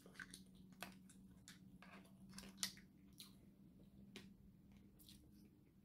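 Faint eating sounds: scattered light clicks of metal chopsticks against plastic takeaway containers and food, the loudest a little over two and a half seconds in, with soft chewing. A faint steady hum runs underneath.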